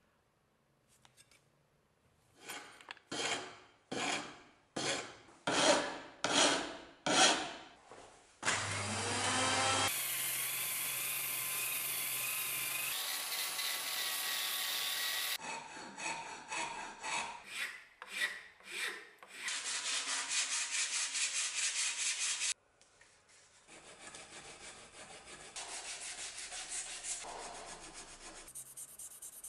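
Abrasive worked over a wooden ash cleaver handle: about eight hand rasping or sanding strokes, then a rotary sander-polisher with a sanding disc spinning up with a rising whine and running steadily against the wood for about seven seconds. More strokes follow, then softer hand-sanding rubs near the end.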